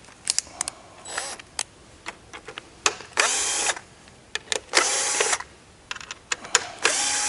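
Cordless drill-driver running in three short bursts, backing screws out of the end cover cap of a conveyor. Small sharp clicks and knocks of the screws and parts come in between.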